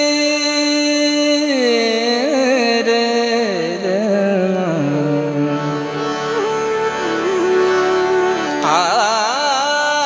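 Indian devotional music: a male singer's wordless alap, gliding and ornamented, descending slowly and ending in a wavering flourish before settling on a held note, over a steady harmonium drone.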